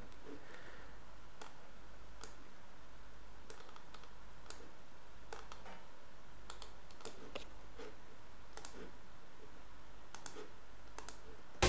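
Scattered single clicks of a computer mouse at irregular intervals, over a faint steady low hum.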